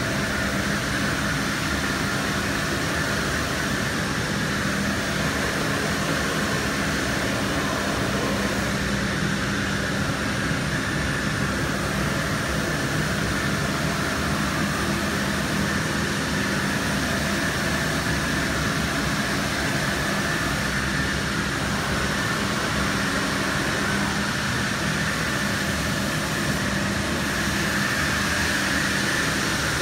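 Masterwood 15/38 K CNC router's spindle cutting a wood panel, a loud, steady machining noise with a high band and a low hum that hold even throughout.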